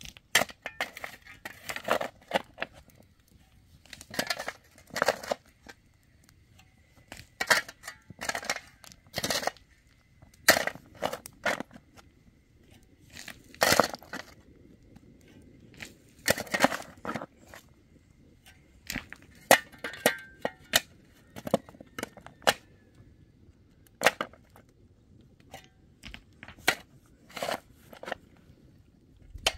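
Metal shovel blade striking and scraping into dry, stony soil in irregular strokes, some in quick clusters, with short pauses between.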